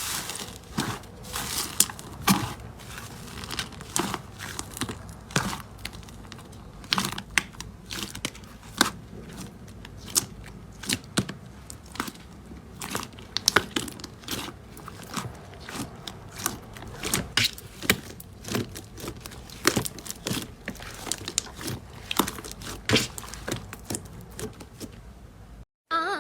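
Slime being squeezed, pressed and stretched by hand, giving a stream of irregular sticky crackles and popping clicks.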